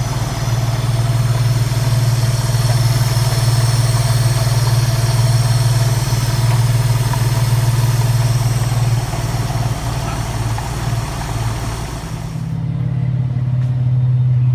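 Dodge Nitro R/T's 4.0-litre V6 idling with the air conditioning running: a steady low hum under a hiss. About twelve seconds in, the hiss drops away sharply and the hum continues.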